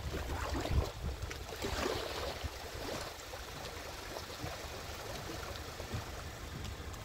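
Outdoor water and wind noise: water lapping and splashing with wind on the microphone, busiest in the first three seconds, then a steady quieter hiss.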